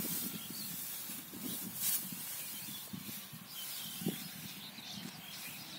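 Wind rumbling on the microphone, with dry paddy straw rustling as sheaves are handled on the loaded cart, and a single dull thump about four seconds in.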